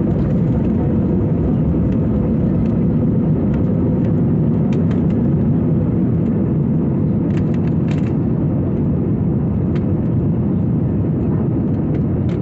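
Steady jet-engine and airflow noise of an Airbus A320 during takeoff, heard inside the passenger cabin: an even, low-pitched rush with a faint steady hum, holding level throughout.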